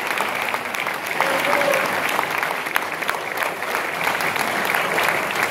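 Audience applauding: a dense, steady clatter of many hands clapping, with a short voice call from the crowd about a second in.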